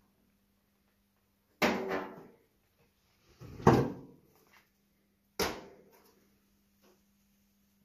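Three sharp clanks with short decays, about two seconds apart, as the Ford Model T's hinged sheet-metal hood side panel is handled and lifted open.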